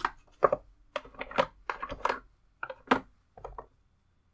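Wooden hexagonal Hive game tiles being handled: a string of short, sharp wooden clicks and knocks as the pieces are picked out of their box and clack against each other, stopping a little before the end.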